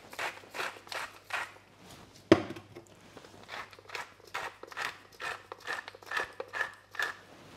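Hand spice mill being twisted over a metal mixing bowl, giving a run of short grinding crunches and clicks, about three a second, with one sharper knock a little over two seconds in.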